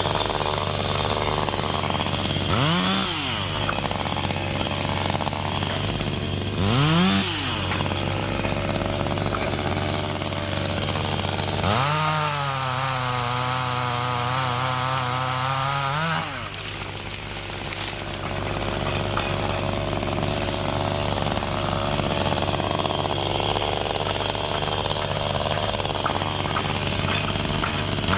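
Chainsaw idling steadily, revved up briefly twice, then held at high speed for about four seconds, its pitch sagging in the middle as it cuts into acacia wood, before dropping back to idle.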